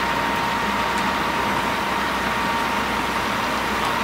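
Fire truck's engine running steadily at pump speed, feeding water to the charged hose lines, with a steady whine over the engine noise.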